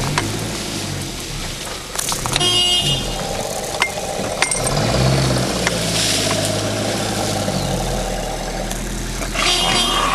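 Car engine running, heard from inside the cab, with two short, sharp blasts: one about two and a half seconds in and one near the end.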